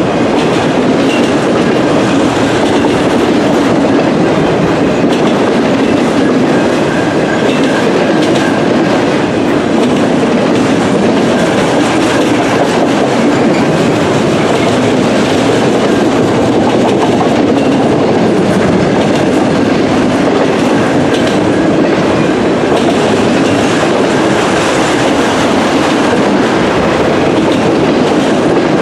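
Autorack cars of a long freight train rolling past at trackside: a steady, loud rumble and clatter of steel wheels on the rails, with a faint high wheel squeal coming and going.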